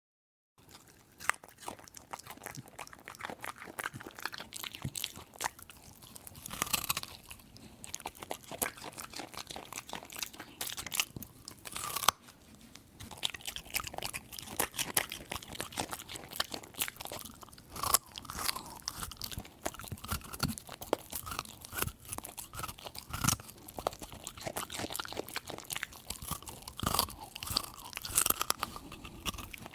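A dog chewing and crunching a carrot: a fast, irregular run of crunches with a short pause about twelve seconds in.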